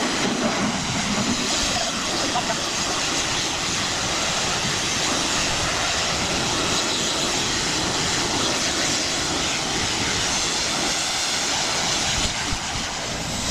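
Pressure washer running steadily, its spray hissing against a brick wall, over the continuous drone of the machine's engine.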